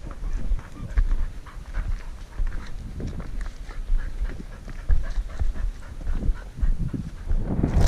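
Pointing dog panting close to the microphone, over irregular rustling and crackling and a low wind rumble.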